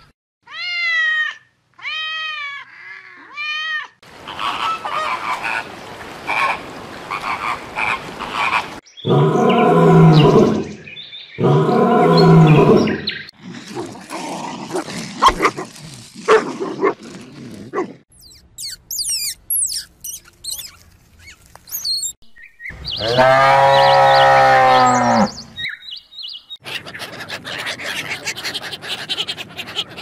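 A run of different animals' calls spliced one after another, each a few seconds long. There is a quick series of rising-and-falling calls near the start, two loud calls in the middle, and another loud call about three-quarters of the way through, with rougher noisy stretches between them.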